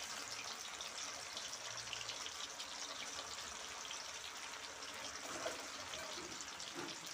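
Marinated chicken pieces deep-frying in hot oil in a steel kadai: a faint, steady sizzle with fine crackle.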